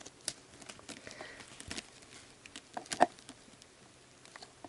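Soft slime studded with small foam beads being pressed and handled by hand, giving faint scattered clicks and small crackles, with a louder click about three seconds in.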